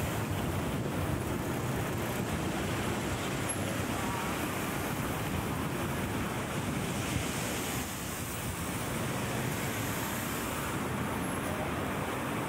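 Steady rushing street ambience of a city at night, a continuous wash of traffic noise.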